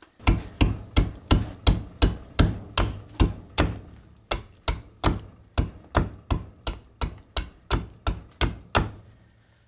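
Curved carving adze chopping into green black walnut: a steady run of sharp strikes, about three a second, leveling off the branch for a ladle. The strikes start heavy and grow lighter toward the end.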